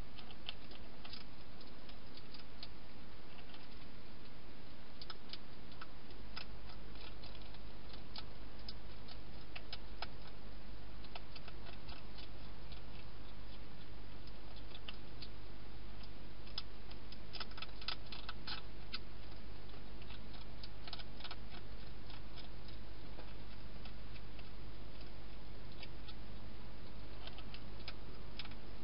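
Wild hedgehog eating dry food: irregular crisp clicks of chewing, with a couple of quick flurries midway, over a steady hiss.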